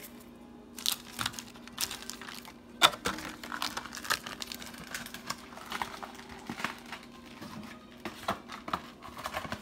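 Foil booster-pack wrappers crinkling and crackling as they are handled, with irregular clicks of the packs and cards being moved about.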